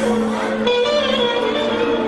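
Clarinet playing a melody over band accompaniment, changing note early on and then holding a long note with slight bends.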